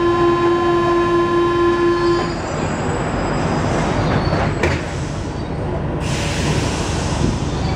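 Inside a rubber-tyred Paris Metro Line 1 car: a steady tone sounds for about two seconds and cuts off, over the car's continuous running rumble. A single knock comes about four and a half seconds in.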